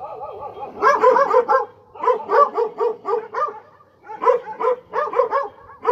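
Stray dogs barking in three bouts of quick, repeated barks.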